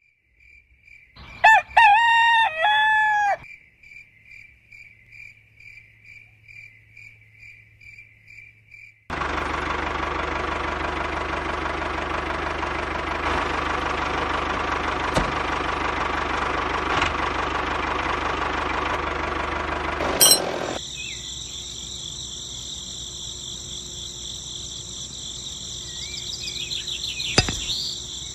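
A rooster crows once, loud, about a second in, over faint steady high chirping. From about nine seconds a steady, even noise takes over for some eleven seconds, then gives way to steady high-pitched tones.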